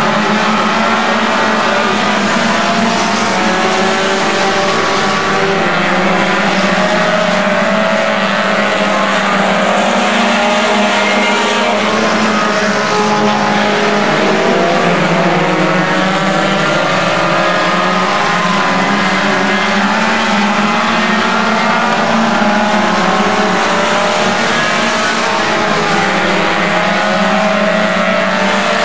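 A pack of front-wheel-drive compact race cars running on a dirt oval. Several engines rev at once and rise and fall in pitch as the cars go through the turns and down the straights.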